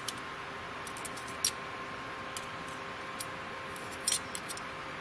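Scattered light metallic clicks and clinks of a German Army stainless steel cutlery set, with the spoon, fork and can-opener holder knocking together as they are handled and fitted. The sharpest clicks come right at the start and about a second and a half in, over a steady faint hiss.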